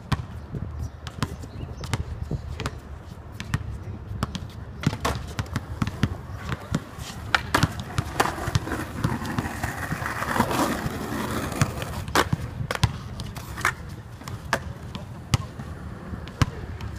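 A basketball bouncing on a hard outdoor court, then a skateboard rolling with a low rumble and sharp clacks of the board.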